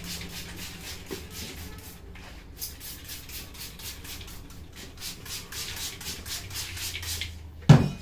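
Plastic trigger spray bottle misting water in quick squeezes, about three or four a second, with a short break around two seconds in. Near the end comes a single loud thump, the loudest sound.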